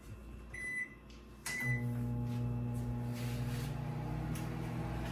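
Keypad beeps on a Beautiful 1000-watt microwave oven, then a click as it starts a 30-second test run. Its low, steady hum starts about a second and a half in and keeps going.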